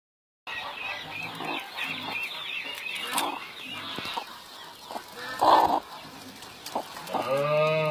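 Domestic hen sitting on a straw nest, clucking in short low notes with quick high chirps over them, then a short loud burst and, near the end, one long drawn-out pitched call.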